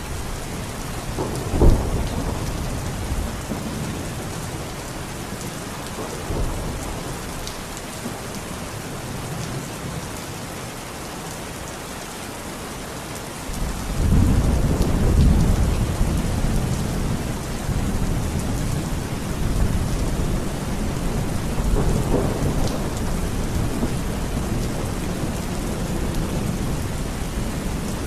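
Steady rain falling in a thunderstorm. A sharp crack of thunder comes about a second and a half in, and about halfway through a long low rumble of thunder swells up and rolls on to the end.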